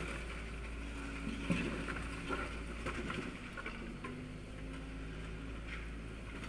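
Excavator demolishing a brick building: a steady engine hum with a few scattered knocks of breaking masonry, the loudest about a second and a half in.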